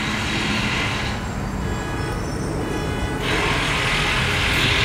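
Crane's diesel engine running with a steady low rumble and a hiss that fades for a couple of seconds and returns as the top piece is lifted.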